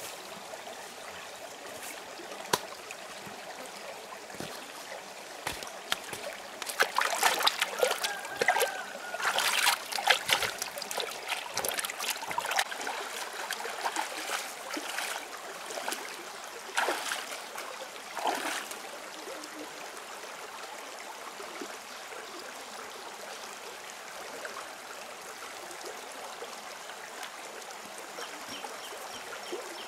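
A shallow rocky stream trickling steadily, with irregular splashing from hands washing in the water from about a quarter of the way in until just past the middle.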